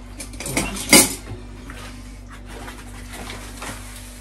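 A spoon clinking against a dish while seasoning is scooped, with a few light taps and one sharp clink about a second in, then faint scattered handling taps.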